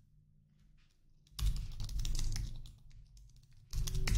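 Computer keyboard typing: a few faint key taps, then a rapid run of keystrokes about a second and a half in and another quick run near the end.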